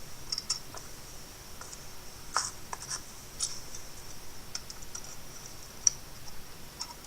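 Clamps being fitted and tightened on a wooden skateboard rail: a series of irregular light clicks and taps, with a sharper one about two and a half seconds in and another near six seconds. A faint steady high hiss runs underneath.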